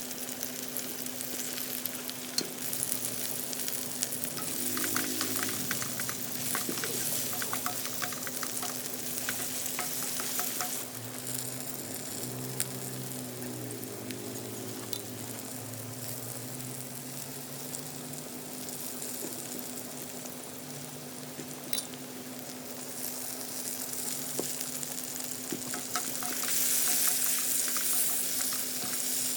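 Octopus and vegetables stir-frying in a pan: a steady sizzle with the clatter and scrape of a utensil stirring. The sizzle eases about a third of the way in and grows louder again near the end.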